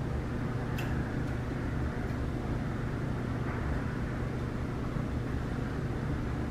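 Steady low background hum with a few faint clicks, the clearest about a second in, from cutlery on takeout plates.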